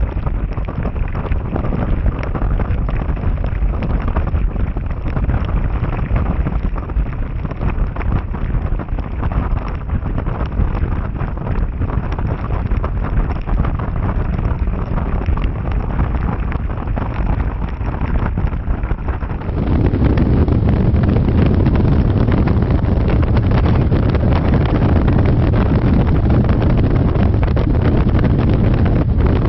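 Wind rushing and buffeting over the microphone of a camera on a motorcycle riding at road speed in heavy rain, with the bike's running noise underneath. About two-thirds of the way through the rush becomes suddenly louder and deeper.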